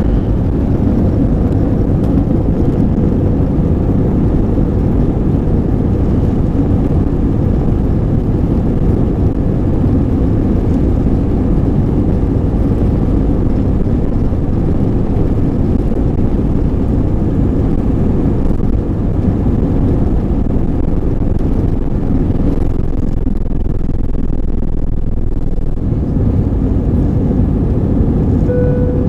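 Airliner's jet engines at takeoff thrust, heard from inside the passenger cabin: a loud, steady, deep rumble through the takeoff roll and liftoff.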